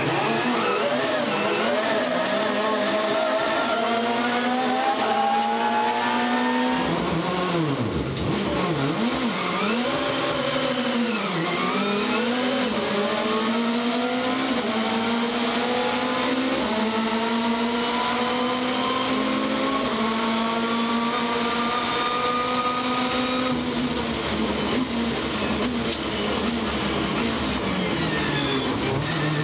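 Racing touring car engine heard from the onboard camera, revving hard and climbing through the gears, its pitch rising steadily then dropping at each upshift. About seven seconds in the revs dip and swoop sharply up and down several times under braking and downshifting before climbing through the gears again.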